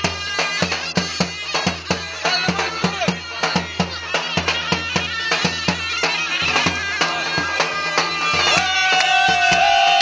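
Traditional folk dance music: a heavy drum beats a steady, fast rhythm under a wind instrument playing the melody. Near the end the wind instrument holds one long high note.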